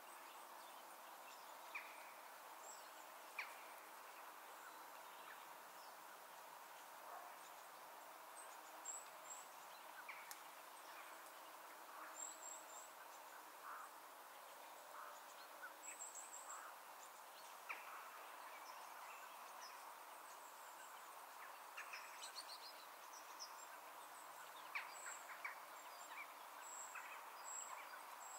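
Quiet rural ambience: a soft, steady hiss with scattered short bird chirps and calls, a few of them high and thin.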